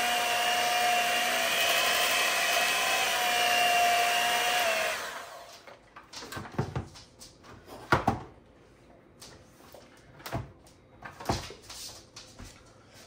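Handheld electric mixer running steadily with a high whine, its beaters whisking a thick, creamy cottage-cheese mixture in a bowl; about five seconds in it winds down and stops. A few short knocks follow.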